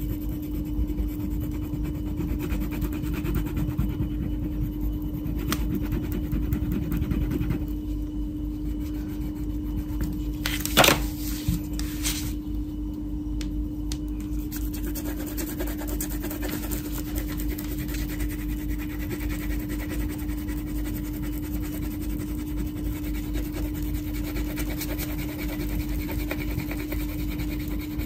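Wax crayon rubbing and scratching on paper as a picture is coloured in, over a steady hum. A sharp knock stands out about a third of the way through.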